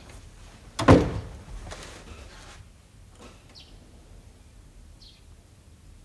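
A single loud thump about a second in, with a short noisy tail, then a few faint bird chirps spaced a second or so apart.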